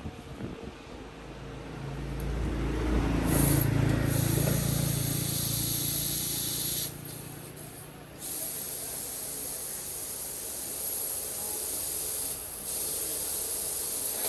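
Compressed air hissing steadily from an air tool, cut off for about a second partway through and briefly again near the end.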